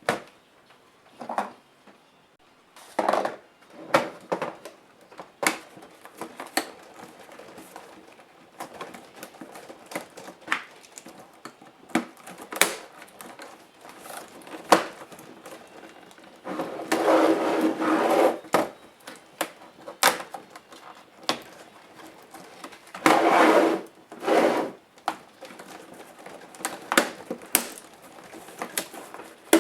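Compaq F700 laptop being taken apart by hand: a string of irregular clicks, taps and knocks of plastic case parts, screws and tools. There are two longer rasping stretches, one about halfway through and one a few seconds later.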